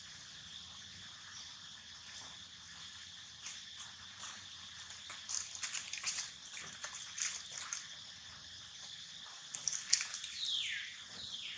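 Long-tailed macaques shifting about on dry leaf litter, the leaves crackling in short bursts, over a steady high drone. Near the end a macaque gives two short squeals that fall in pitch.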